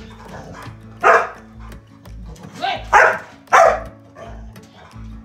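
A dog barking: four short, loud barks, one about a second in and three close together around three seconds in, over steady background music.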